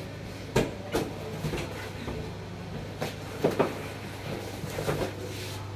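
A cardboard shipping box being handled and its flaps opened: a few sharp knocks and rustles of cardboard, two of them close together about three and a half seconds in, over a steady low hum.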